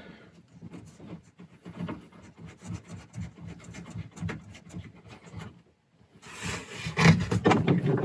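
Faint clicks and rubbing as a seat belt anchor bolt is threaded in by hand behind a car's plastic interior trim panel. About six seconds in, louder rubbing and scraping starts as the trim panel and belt hardware are handled.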